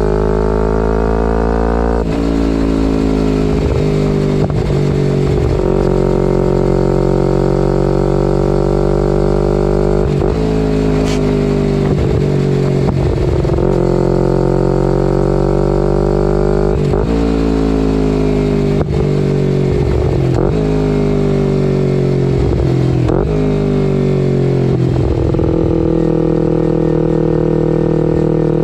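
2011 Kawasaki Ninja 250R's parallel-twin engine through a full Graves race exhaust, riding along: the note rises and falls with the throttle, with brief dips every few seconds.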